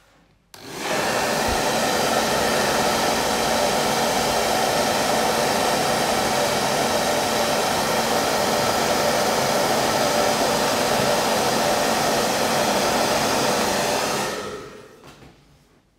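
Hair dryer blowing steadily to dry wet watercolour paint on the paper. It switches on about half a second in and winds down near the end.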